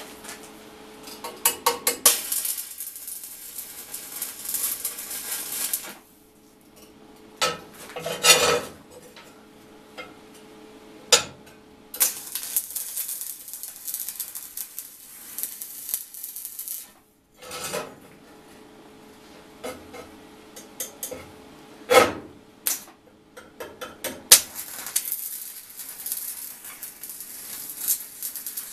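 Stick arc welding on steel plate: three stretches of crackling, sizzling arc, each a few seconds long. Between them come a few sharp metallic knocks, and a steady faint hum runs underneath.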